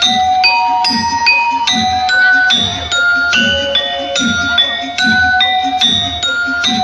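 Loud music from a large carnival sound system: a bright keyboard-like melody stepping from note to note over a steady pulsing bass beat.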